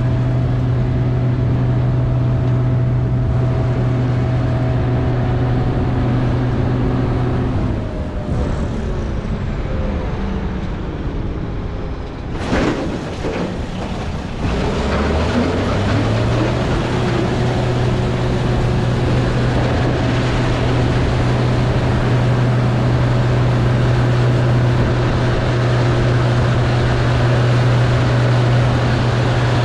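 Case IH 2388 Axial-Flow combine's diesel engine and threshing machinery running at a steady pitch while harvesting soybeans. About eight seconds in the steady note falls away and drops in pitch, with a short clatter a few seconds later. Then the engine note rises back up and settles at its steady working pitch again.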